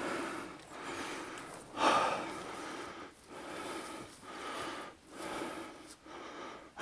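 A person breathing heavily close to the microphone, in and out about once a second, with the strongest breath about two seconds in.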